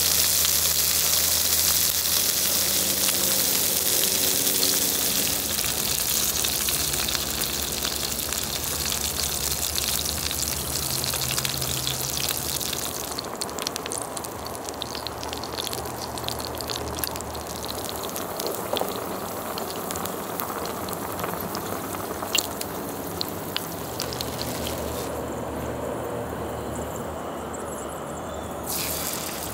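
Food sizzling on an electric grill plate beside a hotpot of soup bubbling at the boil. The sizzle is loudest in the first half, then softer, with a few light clicks of utensils later on.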